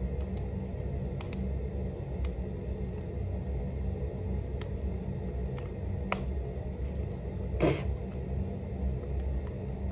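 Small clicks and crinkles of a plastic eyeliner package being handled and opened, over a steady low background hum. One louder short crackle comes about three-quarters of the way through.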